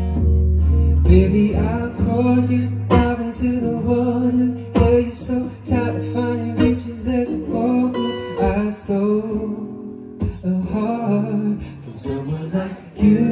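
Acoustic guitar strummed in a live song, with a man singing over it at the microphone.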